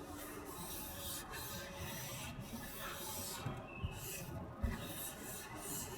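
Rubbing and sliding of packaging being handled, in stretches with short pauses, with two light thumps near the middle.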